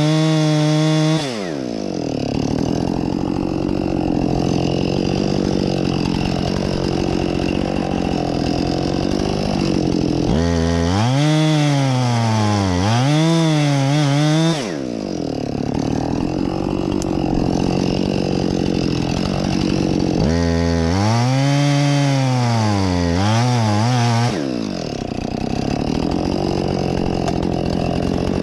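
Husqvarna 576XP two-stroke chainsaw cutting into a poplar trunk at full throttle, its engine pitch dipping and rising over and over as the chain bogs down in the cut and frees up. Between two spells of this wavering, one about ten seconds in and one about twenty seconds in, it runs at a steadier pitch.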